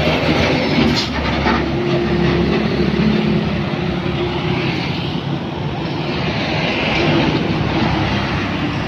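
Heavy diesel dump trucks passing close by, their engines running with a low steady note over tyre and road noise, with motorbikes passing as well.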